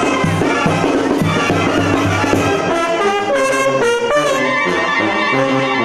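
Live Mexican banda brass band playing, with sousaphone and trumpets: a pulsing bass beat under the brass, which gives way to long held brass notes about three seconds in.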